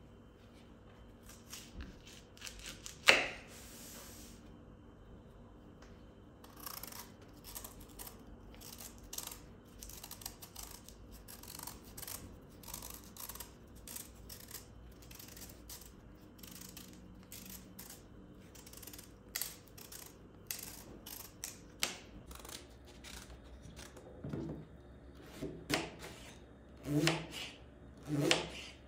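A kitchen knife peeling a celeriac: repeated short scraping strokes of the blade cutting away the rough skin, with one sharp knock about three seconds in. Near the end the knife slices through the peeled root, each cut ending in a dull thud on the wooden cutting board.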